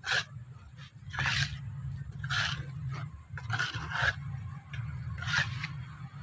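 Steel trowel scraping across wet cement on a mould, about six short strokes roughly a second apart.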